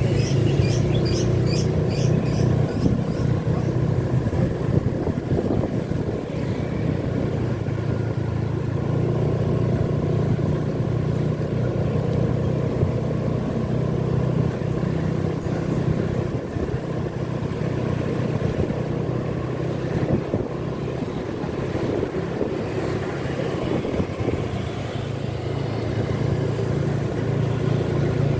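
Steady hum of a car's engine with tyre and road noise while driving slowly along a wet street.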